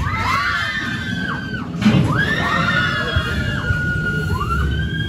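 Several riders screaming together on a free-fall drop ride: long, wavering screams in two stretches, split by a short bump about two seconds in.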